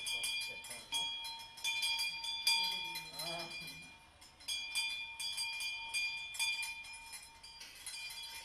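Touch-free sensor-operated temple bell, a hanging metal bell, rung automatically in quick repeated strokes while a hand is held near its sensor, each stroke renewing a steady ringing tone. The ringing dies away about four seconds in, then starts again half a second later.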